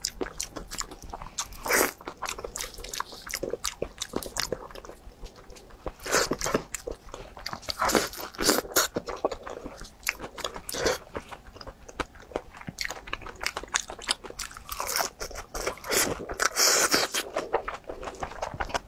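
Close-miked biting and chewing of a pan-fried purple rice bun, its crisp crust crunching as many sharp crackles. The crackles come in louder clusters every few seconds.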